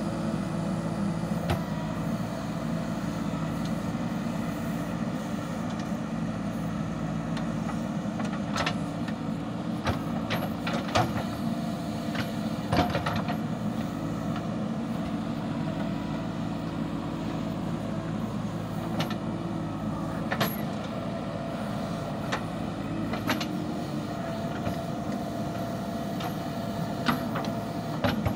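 JCB backhoe loader's diesel engine running steadily under load while its rear bucket digs, with scattered sharp knocks and scrapes as the bucket works through soil and stones.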